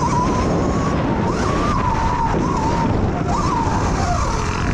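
Electric dirt bike motor whining, its pitch rising and falling several times as the throttle is rolled on and off, over a steady rushing noise.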